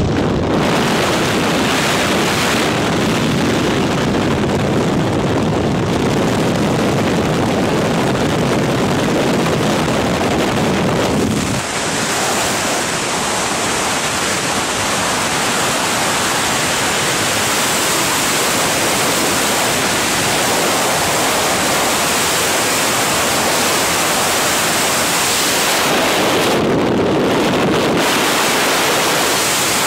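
Freefall wind blasting over the camera microphone during a tandem skydive: a loud, steady rush of noise. About eleven seconds in, the deep rumble drops out and the rush turns thinner.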